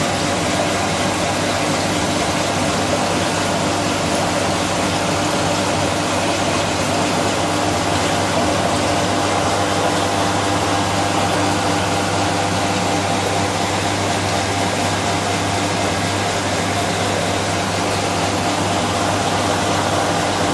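Aquarium water pump running with water circulating: a steady hum under an even rush of moving water, unchanging throughout.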